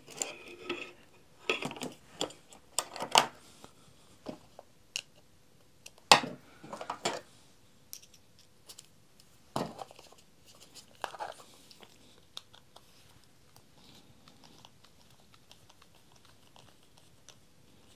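Small clicks and knocks from handling a precision screwdriver set: bits picked from the magnetic case and a bit fitted into the handle. The scattered clicks fade to faint ticking in the later part, as a small cross-head screw is turned out.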